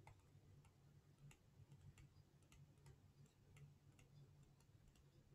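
Near silence with a low hum, broken by faint, fairly regular clicks about two or three a second: a stylus tapping on a tablet screen during handwriting.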